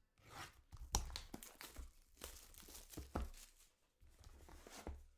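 Utility knife slicing through the seal of a cardboard trading card box: a run of scraping, tearing strokes with a couple of sharp clicks, about one and three seconds in, followed by cardboard being handled.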